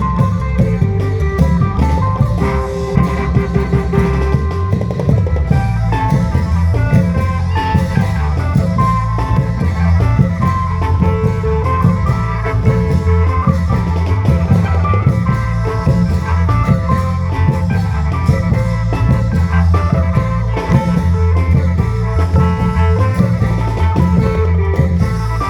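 Isan klong yao long-drum band playing: the long drums beat a steady, driving rhythm under a melody in the style of the khaen.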